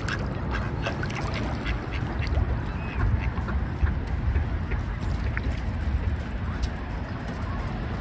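Mallard ducks quacking in short scattered calls over a steady low rumble.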